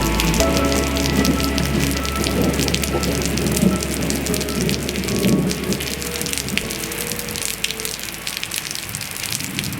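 Rain falling steadily on a surface, full of small drop ticks. Soft background music lies underneath and fades out over the last few seconds.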